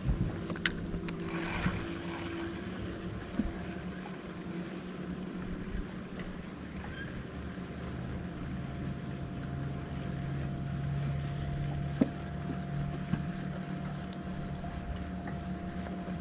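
A boat motor runs with a steady low hum made of several even tones, one of which swells a little in the second half. A few light knocks sound over it, the sharpest about twelve seconds in.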